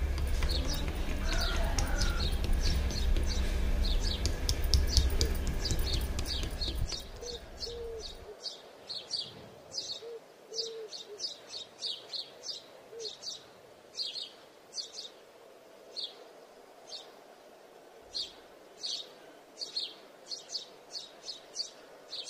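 A small bird chirping over and over, short high chirps coming a few times a second. A loud low rumble runs under the first seven seconds or so, then stops.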